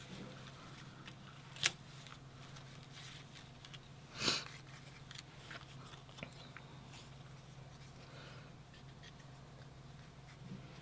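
Die-cut paper embellishments being handled and shuffled on a cutting mat: faint rustles and light ticks, with a sharp click a little over a second and a half in and a brief louder rustle around four seconds, over a steady low hum.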